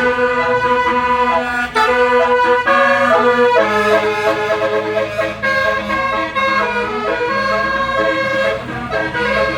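Indonesian bus 'telolet' musical air horn playing a melody of held notes that step to new pitches every second or so, with vehicle engine rumble beneath.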